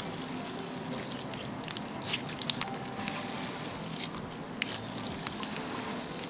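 Clear slime with foam beads being squeezed and poked by hand, giving scattered small sticky pops and crackles.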